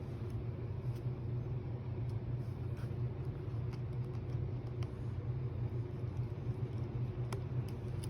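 Steady low background hum with a few faint, sharp clicks of small tools touching phone parts.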